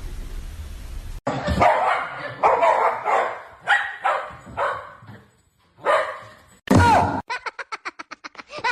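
A dog barking in a string of short, separate barks after a low hum in the first second. Near the end the barks come in a fast run.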